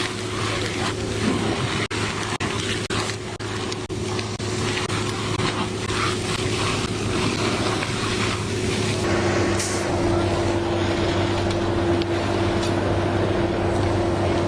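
A large engine running steadily under a rushing, water-like hiss, like a pump pushing water. About nine seconds in, its hum steps slightly lower and the low rumble grows louder.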